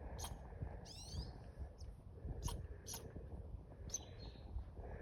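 Birds calling: several short, sharp chirps and a quick run of rising-and-falling notes about a second in, over a steady low rumble.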